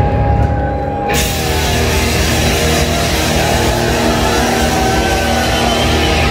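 Live hard-rock band playing loud: electric guitar with held notes, bass and drums, with the full kit and cymbals coming in about a second in.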